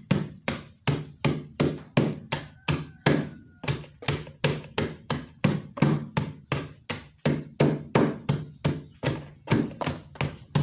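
A mixture of three herbs being pounded in a cut-open plastic jerry can used as a mortar: steady, even blows, about three and a half a second, mashing the leaves into a liquid.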